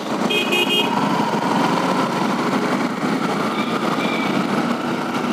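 Motorcycle engine running and wind noise while riding slowly in city traffic, from the rider's position, with a brief high beeping near the start.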